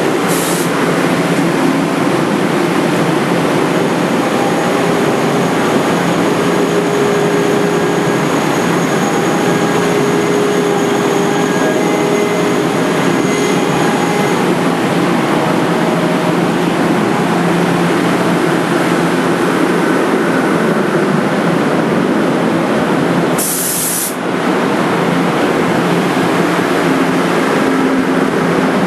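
NJ Transit Comet passenger coaches rolling slowly past on the rails, a steady running rumble with a faint hum. There are two short, sharp hisses, one just after the start and one about 23 seconds in.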